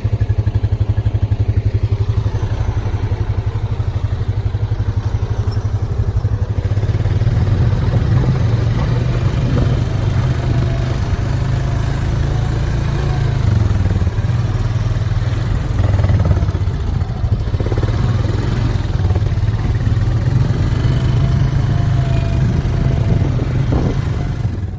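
Farm quad bike (ATV) engine running steadily as it is ridden.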